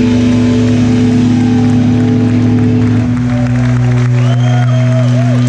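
Live hardcore band letting a loud distorted guitar and bass chord ring on, the drumming stopping about three seconds in. Crowd cheering and shouting over the held chord.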